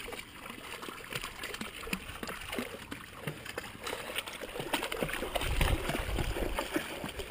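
A shallow mountain stream running, with irregular splashes of dogs playing in the water. A low rumble on the microphone swells about five and a half seconds in.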